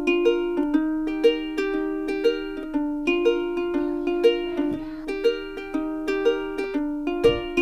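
Background music: a light tune on a plucked string instrument, with notes struck about twice a second.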